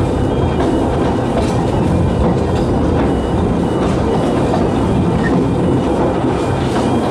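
Narrow-gauge Talyllyn Railway passenger carriage running along the line, a steady rumble of wheels on rails with clickety-clack over the rail joints, heard from the carriage.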